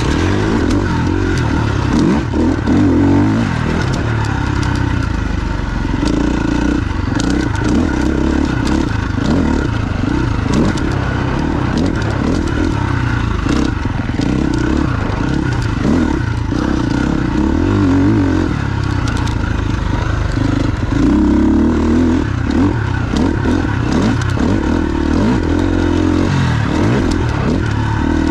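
KTM 350 XC-F's single-cylinder four-stroke engine, through its FMF exhaust, being ridden off-road, revving up and falling back over and over as the throttle is worked, with scattered clicks and clatter.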